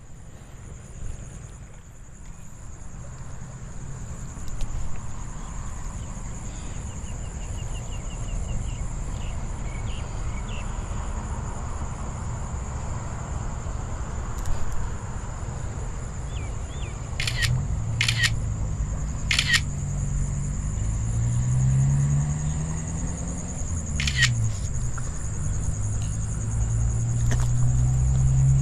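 Smartphone camera shutter sound clicking four or five times in the second half, over a steady low rumble.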